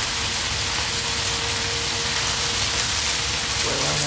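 Pork pieces sizzling in a wok: a steady, even hiss of frying fat.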